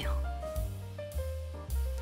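Soft background music: a steady bass line under a few held notes.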